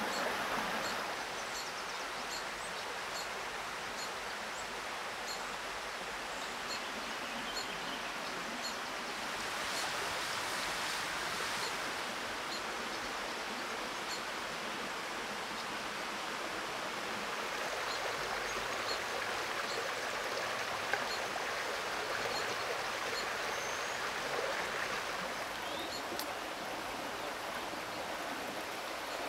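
Egg yolk and oil being whisked into mayonnaise with a twig whisk in a wooden bowl: a steady wet swishing with faint, evenly repeated high ticks.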